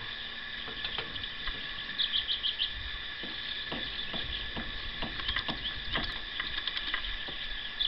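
Scattered light metal clicks of a wrench working the flange bolts loose on a Bell & Gossett NRF-22 circulator pump. A bird gives a quick run of chirps about two seconds in, over a steady insect drone.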